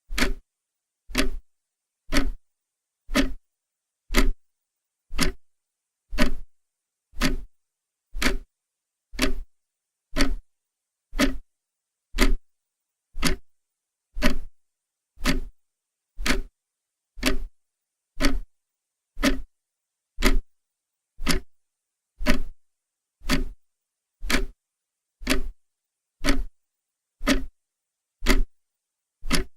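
Clock ticking steadily, one sharp tick about every second, with silence between the ticks.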